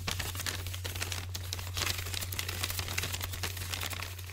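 Dense, irregular crackling like old-film or record static, over a steady low hum.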